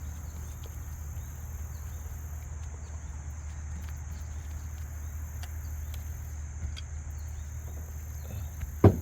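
Insects trilling steadily in a high, thin band over a low, steady rumble, with a few faint ticks. One sharp knock just before the end is the loudest sound.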